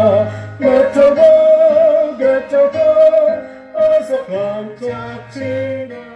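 Singing with guitar accompaniment: long held, wavering sung notes over steady low bass notes, growing quieter in the second half and fading out near the end.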